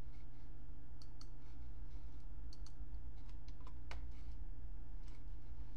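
Scattered light clicks of a computer mouse, a dozen or so, some in quick pairs, over a steady low electrical hum.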